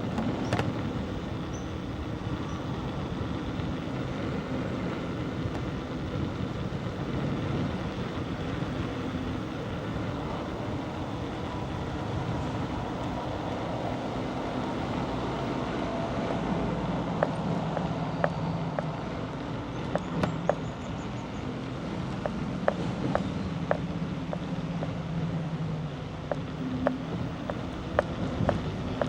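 Bicycle riding along a village road: a steady rumble of tyres and wind. From about halfway through, short sharp rattling clicks come every second or so.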